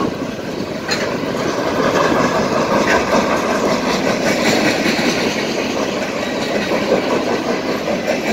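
Freight train of loaded flatcars rolling past at close range: a steady rumble and rattle of wheels on rail, with a couple of sharp clacks as wheels cross rail joints.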